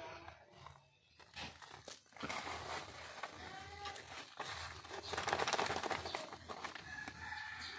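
Black plastic polybag rustling and crinkling as hands pack soil around a coconut seedling in it. A few faint pitched calls sound over it.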